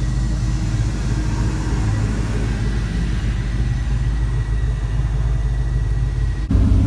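A vehicle engine idling, a steady low rumble. About six and a half seconds in it cuts sharply to a louder, deeper idle.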